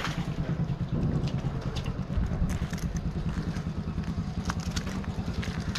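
An engine idling with a steady, fast, even chugging beat, with a few light clicks and knocks over it.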